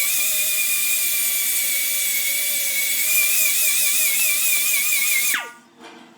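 High-speed pneumatic grinder or buffer running against the inside of the tyre: a steady high whine with hiss whose pitch wavers as it is pressed on, typical of buffing the inner liner before a patch. A little over five seconds in the trigger is released and the tool spins down with a quickly falling whine.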